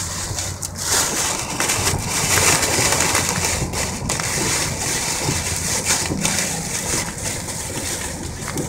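Heavy rain beating steadily on the car's windshield and roof, heard from inside the cabin while driving, over a low hum of engine and tyres on the wet road.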